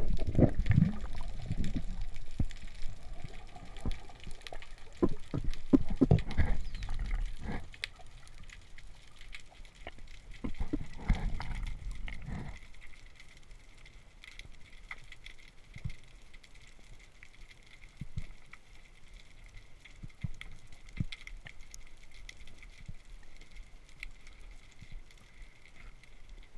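Underwater sound picked up through a GoPro's waterproof housing: low, muffled water rumble with knocks for the first dozen seconds, then quieter, with scattered faint clicks and crackles throughout.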